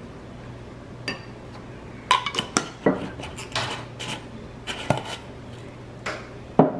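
A spoon clinking and tapping against ceramic dishes while seasonings are spooned onto a bowl of soup: about nine light, irregular clinks, some briefly ringing, over a faint steady hum.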